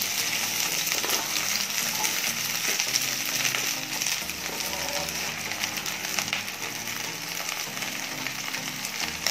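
Cut okra sizzling and crackling in hot oil in a non-stick pan, with a steady hiss; more pieces are tipped in from a bowl near the end.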